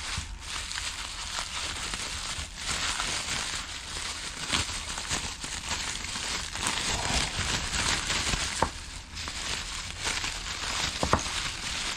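Plastic packaging crinkling and rustling as parts of a carburetor kit are handled and unwrapped, with scattered small clicks.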